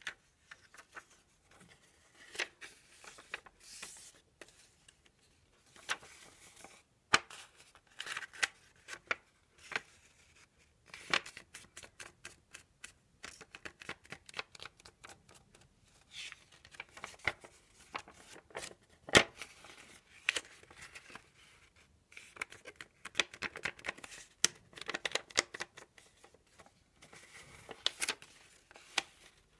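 A square of white A4 paper being folded and creased by hand: irregular bursts of rustling and crinkling with many sharp crackles, the loudest about seven and nineteen seconds in.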